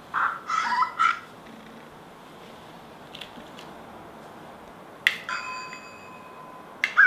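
A short child's voice at the start, then a click about five seconds in and an electronic chime of a few held tones lasting nearly two seconds from the Magic Mixies interactive toy as its magic wand is touched to it.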